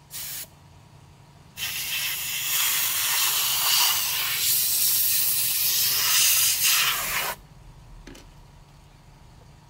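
Jet of air hissing from a blower nozzle: a brief puff, then a steady blast of about six seconds that cuts off suddenly.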